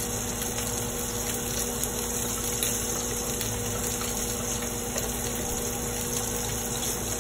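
Steady hum of a running motor with a constant low tone, over an even hiss.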